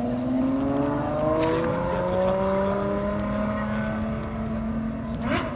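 A car engine accelerating, its pitch climbing slowly over several seconds, with a steadier lower engine tone underneath.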